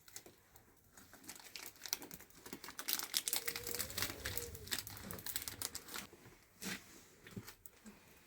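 Crinkling and rustling, like something being handled or crumpled, with a quick run of small clicks and crackles that is busiest in the middle and thins out toward the end.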